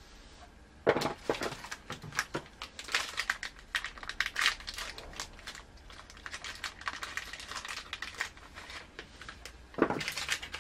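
Crinkling and rustling of paper wrapping being handled, with small clicks of objects moved on a tabletop; a louder burst of crinkling comes near the end.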